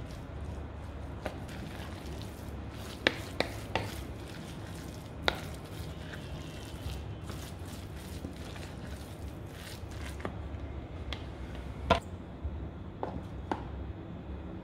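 A spoon stirring and mashing a wet crumbled tofu and vegetable mixture in a glass bowl: soft squishing with irregular sharp clicks as the spoon knocks against the glass.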